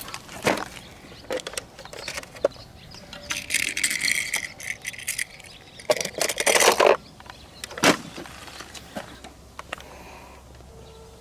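Small toy trains being handled and set into the compartments of a hard plastic carry case: a string of light clicks and rattles, with a longer clattering rattle about six seconds in.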